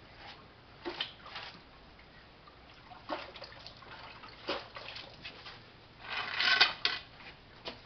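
Water sloshing and splashing in a plastic bucket as a child plays in it: a few short splashes, the loudest and longest about six seconds in.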